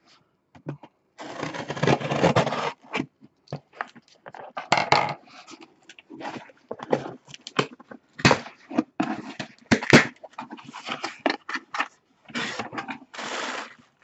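Scissors slitting the packing tape on a cardboard shipping box, then the taped flaps being pulled open: a run of scraping, tearing and crackling cardboard with several sharp clicks and knocks. Near the end, a plastic-wrapped packet rustles as it is lifted out.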